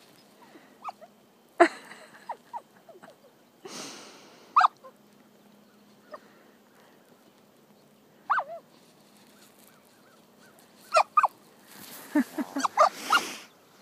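An Australian shepherd puppy giving short, high whimpering yips in scattered bursts, with a quick cluster of them near the end. Brief rustling noises come between the yips.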